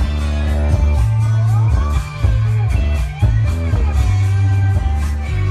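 Guitar music with a heavy, loud bass line played through a TruAudio 8-inch subwoofer; the bass briefly drops out about two and three seconds in.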